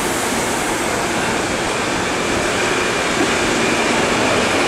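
CAF-built CPTM Série 7000 electric multiple unit at a station platform, its equipment running with a steady hum. Near the end it begins to pull away, with a faint rising whine as it gets under way.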